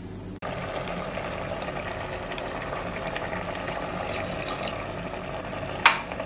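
Water poured in a thin stream onto masala-coated chicken in a pressure cooker, a steady trickling splash, with one sharp clink near the end.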